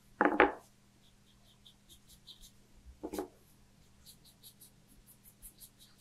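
Paintbrush dabbing and stroking gouache onto paper: faint, quick scratchy strokes, broken by two brief louder knocks, one right at the start and one about three seconds in.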